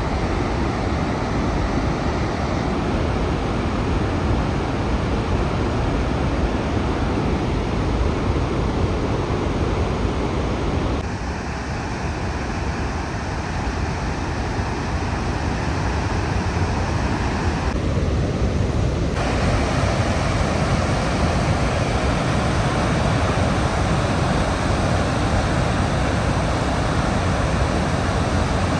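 Victoria Falls, a roaring curtain of falling water, heard as a loud, steady rushing with wind buffeting the microphone. The rushing changes character abruptly twice.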